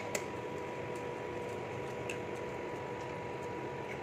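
A knife cracking an egg's shell with a sharp click at the start, then a steady soft hiss with a faint steady whine from the induction cooktop as the egg fries in hot oil, with a few faint ticks.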